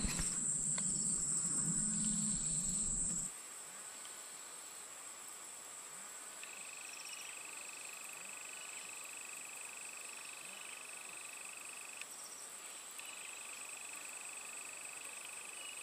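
Insects shrilling steadily with one high, continuous tone, joined about six seconds in by a second, lower steady trill that breaks off briefly near twelve seconds and then resumes. A low rumble runs under the first three seconds and cuts off suddenly.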